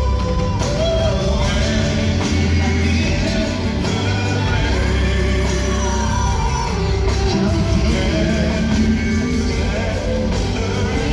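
Live R&B ballad: a band playing with strong bass, and voices singing long, wavering notes over it.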